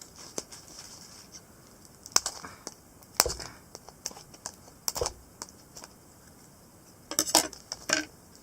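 Scissors cutting the plastic packaging of a toy surprise egg: scattered sharp snips and clicks with quiet gaps between, and a quick run of them near the end.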